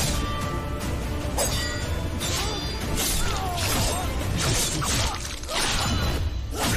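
Action-film fight soundtrack: a string of sudden hits and crashes over a dramatic background score and a low rumble.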